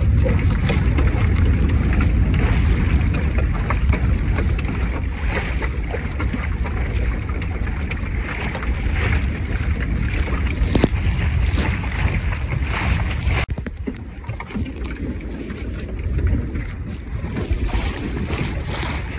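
Wind buffeting the microphone over water rushing and splashing along the hull of a two-person Pacer sailing dinghy under way. The sound drops a little about two-thirds of the way through.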